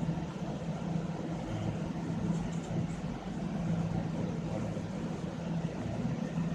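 A steady low mechanical hum with a constant droning tone over background noise.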